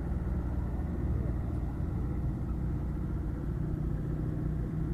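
Excavator's diesel engine running steadily, a continuous low rumble.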